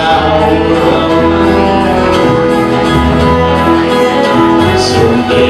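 Live band music, an instrumental passage with a saxophone playing held notes over the rest of the band.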